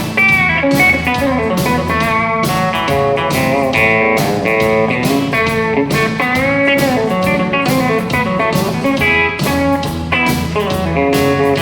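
Scheltema Sherwood Classic pedal steel guitar playing a melodic passage of chords and single notes, with sliding pitch bends between some of them.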